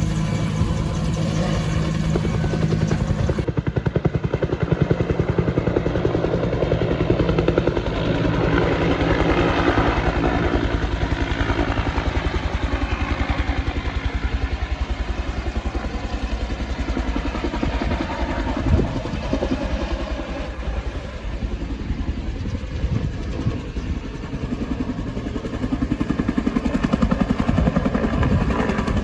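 Bell 205 helicopter: its two-bladed main rotor beats in a rapid, steady thudding over the whine of its turboshaft engine. A single sharp knock sounds about two-thirds of the way through.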